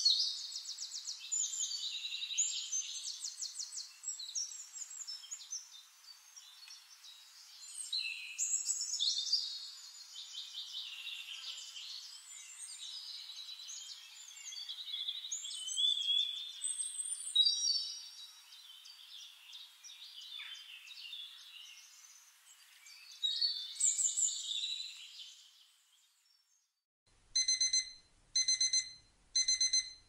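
Forest birdsong: several songbirds chirping and warbling in overlapping phrases, fading out near the end. About a second later a gentle alarm-clock beep starts, sounding in groups of quick high beeps about once a second: a countdown timer's finishing alarm.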